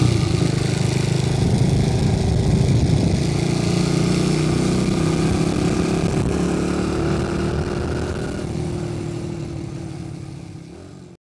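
The small single-cylinder four-stroke engine of a Chinese replica Honda Monkey minibike running at a steady note, fading away over the last few seconds and then cutting off.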